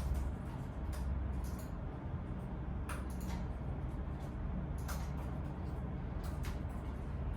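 Work-room ambience: a steady low hum with scattered light clicks and taps from people at work.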